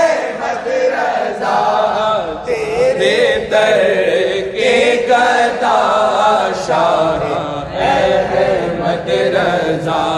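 Male voices singing a wordless, drawn-out melodic passage of an Urdu manqabat (devotional song), the held notes wavering and bending in pitch, with short breaths every couple of seconds.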